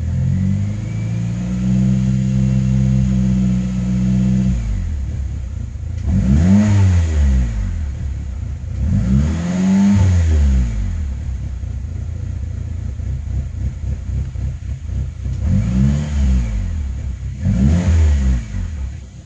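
Saab 9-3 Aero's 2.0-litre turbocharged Ecotec four-cylinder engine running. It holds a raised idle for a few seconds, then is revved up and let fall back four times. After a rebuild it idles rough and logs a random-misfire code (P0300), which the owner suspects is a bad coil pack.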